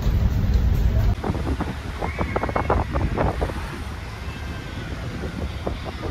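Loud low rumble inside a ferry for about a second, then an abrupt change to wind buffeting the microphone over sea water washing and foaming along the ferry's hull.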